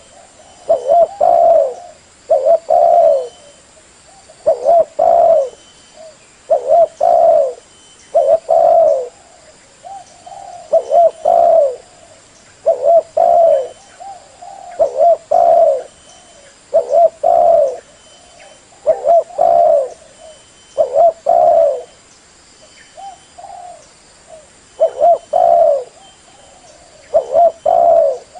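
Spotted dove (tekukur) cooing: a loud repeated song of short phrases, each a few low coos, about one phrase every two seconds. It is a recorded lure call for trapping or shooting doves.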